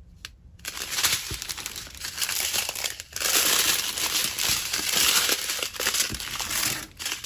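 Small plastic bags of diamond-painting drills crinkling as they are handled and sorted, louder after a brief pause about three seconds in.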